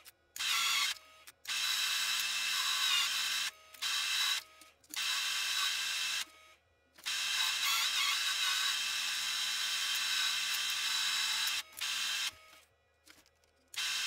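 A small electric motor whirring with a high-pitched whine, in several bursts that start and stop abruptly.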